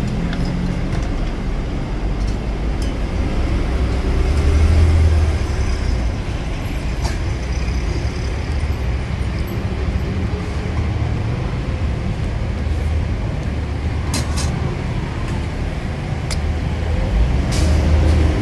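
Road traffic: a steady low engine rumble of trucks and cars on the street, swelling twice as vehicles pass, with a few sharp clicks.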